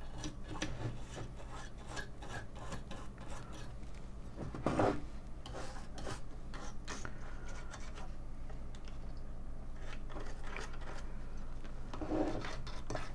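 Toothbrush bristles scrubbing a power-supply circuit board wet with isopropyl alcohol, a run of quick scratchy brushing strokes to clean soot off it, with a louder knock about five seconds in. A steady low hum sits underneath.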